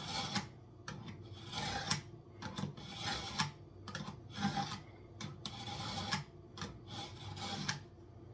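Steel kitchen knife blade being sharpened on rough masonry: a run of short scraping strokes, about two a second, that stop shortly before the end.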